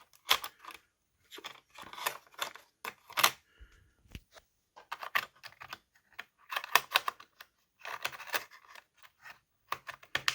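Irregular clicks, taps and light scrapes of a laptop RAM module being handled and pushed back into its slot in an Acer Aspire V5, some coming in quick clusters.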